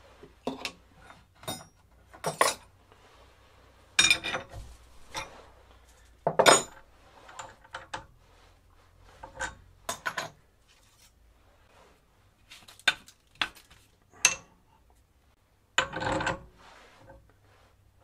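Steel lathe tooling being handled by hand: a series of separate metal clinks and clanks as the tool post clamp and tool holder are taken off and a boring bar is set in place, with a longer clatter near the end.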